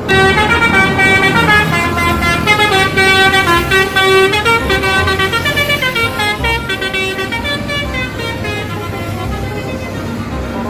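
A bus's Basuri telolet horn playing a tune, with its notes stepping up and down in pitch over a low rumble. It grows slightly quieter in the second half.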